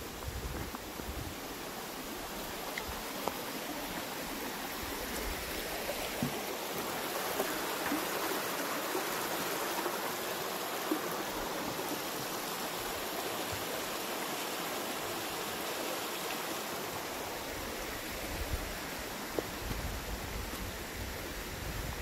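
Shallow forest stream running over a flat rock bed, growing louder toward the middle and easing off again near the end.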